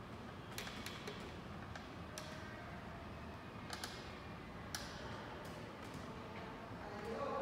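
Metal expansion-joint cover plate in a building's floor making irregular sharp ticks and creaks as the building sways in the shaking of a magnitude 7.1 earthquake.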